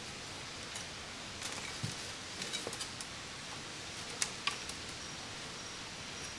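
A few light clicks and taps over a steady hiss, with two sharper clicks a little after four seconds in.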